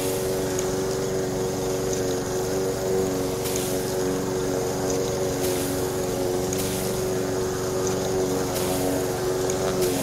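Small electric motor driving a miniature rice thresher's drum, running with a steady drone. A brief high hiss comes every second or two.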